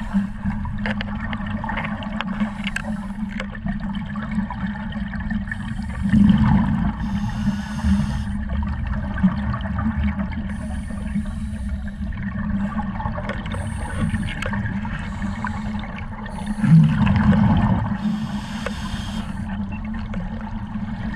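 Underwater sound of scuba breathing: short regulator hisses every few seconds, with two louder rushes of exhaled bubbles gurgling, about six seconds in and again near seventeen seconds, over a steady muffled water noise.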